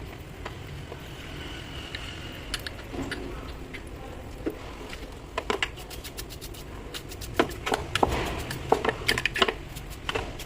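Sharp clicks and taps of small parts and hand tools being handled, scattered at first and coming thicker and louder in the last few seconds, over a steady low rumble.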